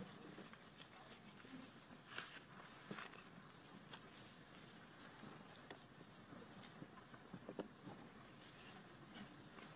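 Faint, steady high-pitched insect chirring, with a few scattered soft clicks.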